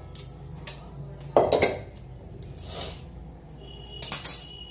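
Kitchen utensils and cookware clinking and clattering in a series of sharp knocks, the loudest about a second and a half in, with a thin high ringing tone near the end.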